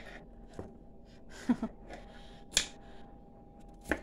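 A few separate sharp knocks and clicks as small kitchen knives cut raw potatoes into chunks on a wooden cutting board and chunks drop into a metal saucepan.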